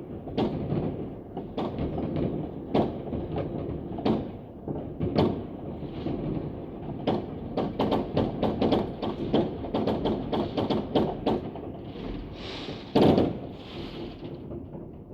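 New Year's fireworks going off all around: a dense, irregular stream of bangs and cracks, with one louder blast about 13 seconds in.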